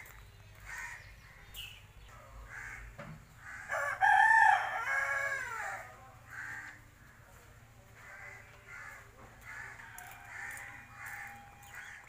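A rooster crowing once, loud and about a second and a half long, starting nearly four seconds in, with fainter short calls from chickens around it.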